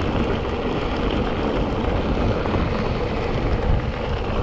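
Wind buffeting the camera microphone as a mountain bike descends at speed, with its tyres rolling over a loose gravel track: a steady, dense rushing noise.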